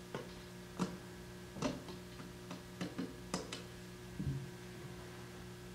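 Small push buttons on an ATI LED Powermodule power supply's control panel clicking as they are pressed in quick succession, about nine or ten faint clicks over the first four seconds, entering the button combination that opens the hidden factory settings. A faint steady hum lies underneath.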